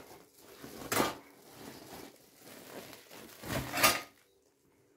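A white sack being handled and lifted, rustling. There is a short sharp knock about a second in and a louder, longer rustle near the end.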